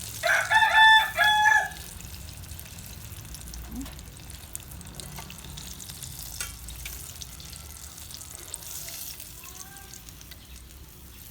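A rooster crows once, a loud call of about a second and a half in three parts, at the start. It is followed by the steady sizzle of chicken deep-frying in oil.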